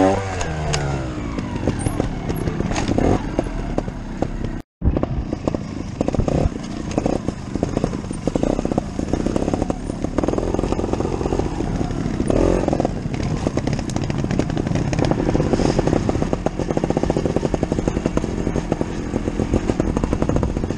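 Scorpa 250 two-stroke trial motorcycle engine running at low revs, its revs rising and falling as the bike is ridden slowly over rough forest ground, with rattling from the bike. It cuts out abruptly for a moment about five seconds in.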